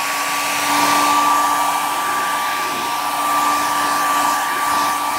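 Hand-held hair dryer running on a steady setting: a rush of blown air with a steady motor whine.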